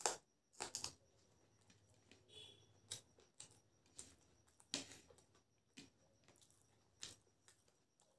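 Close-up eating sounds: a raw green chilli being bitten and chewed, giving sharp, crisp crunches spaced about a second apart, six or so in all.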